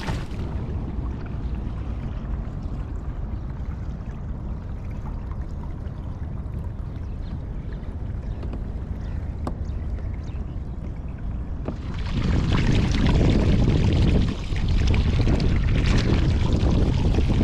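Water and wind noise around a kayak at sea: a steady low rush for most of the time, then from about twelve seconds in a louder, fuller splashing and sloshing of water.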